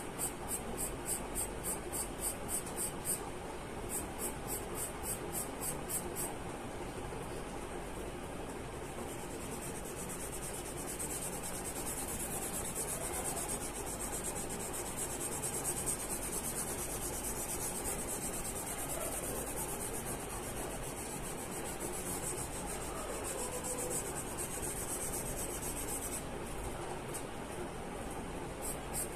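Charcoal pencil scratching across drawing paper in quick, repeated hair strokes, about four a second, changing to a steadier continuous rubbing through the middle and returning to quick strokes near the end.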